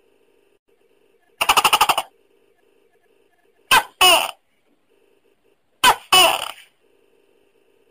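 Tokay gecko calling: a quick rattle of about eight pulses about a second and a half in, then two 'to-kek' calls about two seconds apart, each a short sharp first note followed by a longer note that falls in pitch.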